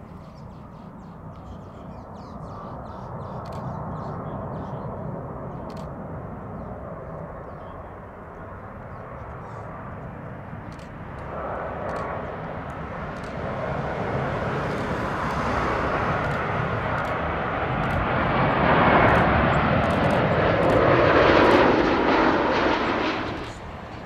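Jet engines of a heavy airliner passing: a rushing noise that builds from about halfway through, is loudest near the end, then cuts off suddenly.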